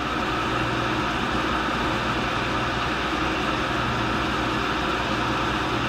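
Tool and cutter grinder running steadily: an even motor and spindle hum with a constant hiss.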